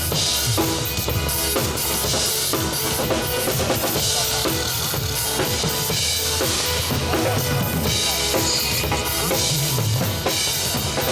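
Instrumental ending of a Mandarin pop song, with a drum kit, bass drum and snare keeping a steady beat under the band.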